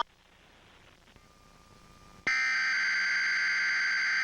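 Emergency Alert System alert tone: a harsh, steady electronic tone cuts in suddenly about two seconds in and holds at full loudness. Before it there is only faint hiss.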